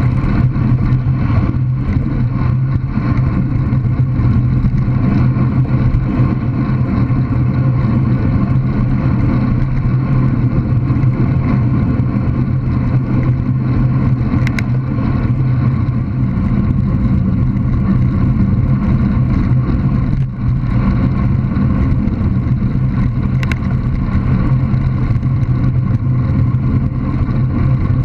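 Steady wind buffeting and road rumble picked up by a GoPro Hero 3+ on a bicycle riding along a lane, with two brief high ticks, one about halfway through and one later.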